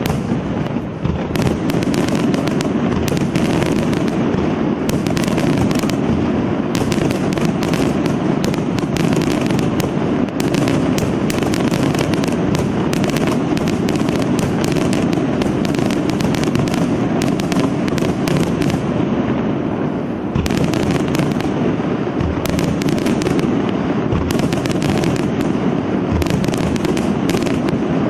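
Aerial fireworks display going off in a dense, continuous barrage of bangs and crackling bursts.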